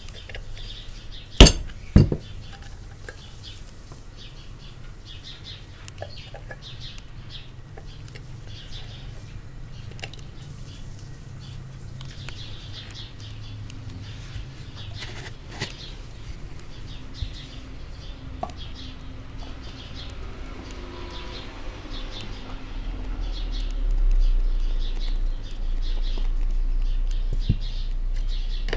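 Two sharp knocks about half a second apart near the start, over birds chirping in the background; a low rumble builds up about three-quarters of the way through.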